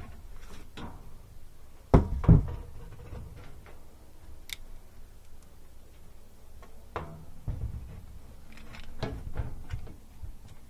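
Knocks and clatters of hands and tools handling the sheet-metal cabinet of an air handler, with two sharp knocks about two seconds in and more near the end, over a low steady hum.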